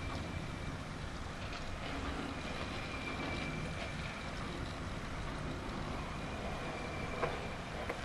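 Slipway winch machinery running steadily as it pays out, letting a barge on its cradle down the slipway. A faint high squeal comes and goes over it, with a few light clicks and a small knock about seven seconds in.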